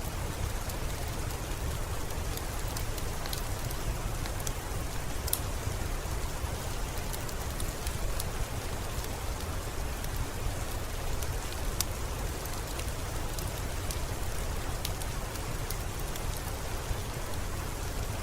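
Steady rain falling, a constant hiss with a low rumble underneath and scattered sharp ticks of single drops striking a surface.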